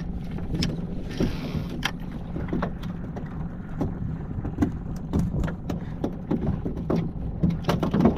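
Small outboard boat motor idling with a steady low hum, under a brief hiss about a second in as the lure is cast from a spinning reel, then irregular clicks and knocks as the line is reeled in.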